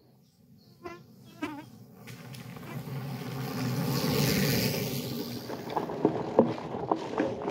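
Flying insects buzzing close to the microphone: two short wavering buzzes, then a steady whining hum that swells for a few seconds. Irregular knocks and rattles come in near the end.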